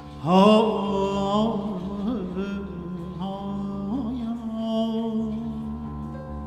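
Live Persian-style music: a melodic line enters about a quarter second in with a sliding rise and vibrato, and carries on over a steady drone. No words are sung.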